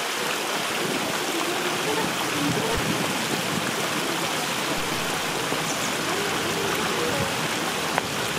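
Shallow stream spilling over a low stone weir: a steady rush of running water, with a single click near the end.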